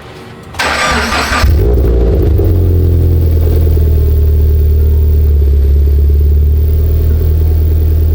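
2013 Subaru BRZ's 2.0-litre flat-four being started: a short burst of starter cranking, then the engine catches about a second and a half in and settles into a loud, steady low idle. It idles through a GReddy Evo GT exhaust that is leaking at its joint, fitted without the proper 2.5-to-3-inch adapter.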